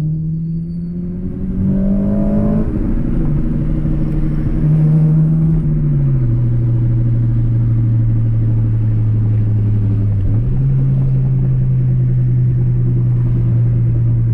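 Acura Integra GSR's B18C1 four-cylinder engine running as the car drives: its note rises about two seconds in and again around five seconds, drops back after each rise, then settles into a steady cruise with a brief dip near ten seconds.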